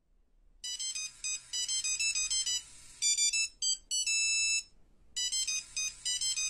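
A high-pitched ringtone-style melody of quick, bright plinking notes, with a short held chord in the middle, a brief pause, then the tune starting over.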